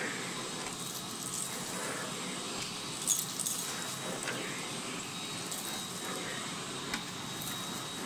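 Miele Blizzard CX1 Cat and Dog Powerline bagless vacuum cleaner running on its middle power setting as the floor head is pushed back and forth over a rug. A steady rush of air is topped by a faint high whine, with a few brief clicks as crumbs are sucked up.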